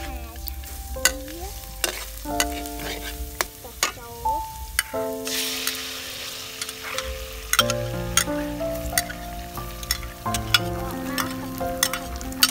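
Metal spatula scraping and clicking against an aluminium wok while chopped garlic fries in oil. About five seconds in, tomato sauce poured into the hot wok sizzles in a short burst.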